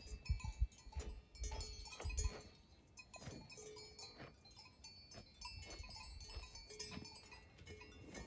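Faint bells on grazing cattle clanking and ringing irregularly, with scattered knocks and short ringing tones. A few low thumps sound in the first two seconds.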